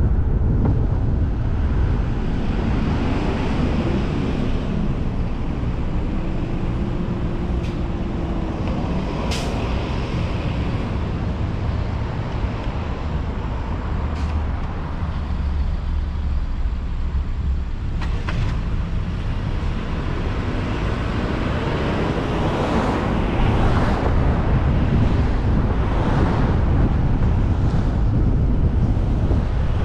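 Steady road and traffic noise from a car driving through city streets: a continuous low rumble of engine and tyres, with other vehicles around it. A faint tone rises and falls a few seconds in, and there are a few light clicks.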